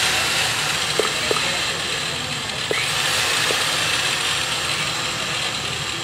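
Oxy-acetylene torch setup hissing steadily with gas flowing under regulator pressure, with a few faint squeaks or clicks about one to three and a half seconds in.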